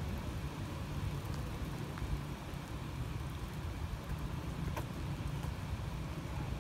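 Steady rain falling, with a few scattered drop ticks, over a low rumble.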